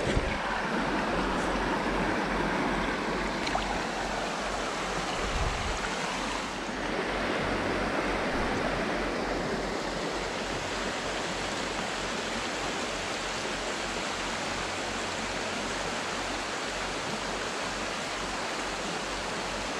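Shallow limestone spring creek running over riffles and rocks: a steady rush of flowing water, with a brief splash right at the start.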